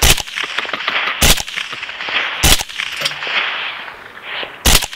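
Four rifle shots, sharp cracks: three about a second and a quarter apart, then a fourth after a longer pause near the end.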